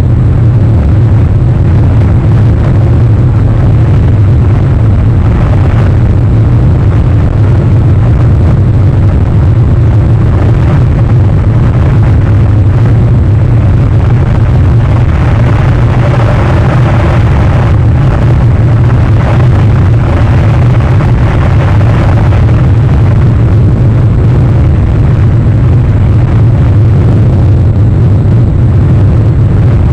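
Wind buffeting an outdoor nest camera's microphone: a loud, steady low rumble that swells slightly about halfway through.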